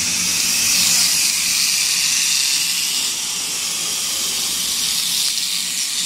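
Spoon-wrapping packaging machine running: a steady, loud hiss with a faint low hum underneath.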